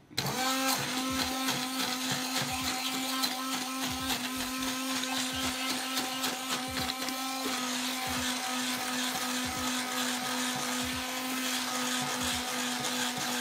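Handheld immersion blender switched on and running steadily, its blade churning boiled rice into a mash in a metal pot.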